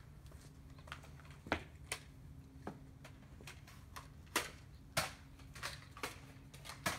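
Nerf dart blasters being primed and fired: an irregular string of about eight sharp plastic clacks and pops, the loudest about a second and a half in, and again after about four and five seconds.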